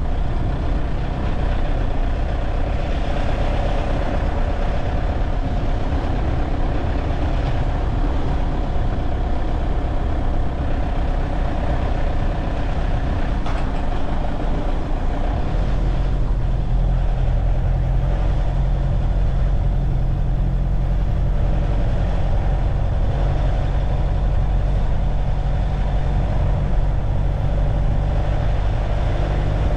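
Car driving through town: steady low engine and road rumble, heavier from about halfway through.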